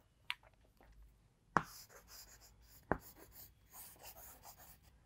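Chalk writing on a chalkboard: sharp taps as the chalk strikes the board, about a second and a half apart, with faint scratching strokes between them.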